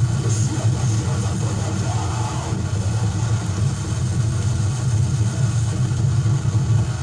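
Harsh industrial noise playing from a vinyl record: a steady, dense, heavily distorted low drone like a bass through a storm of distortion, with no pauses.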